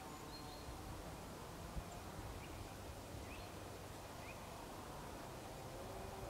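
Quiet outdoor ambience: a steady low rumble and hiss, with a few faint, short bird chirps.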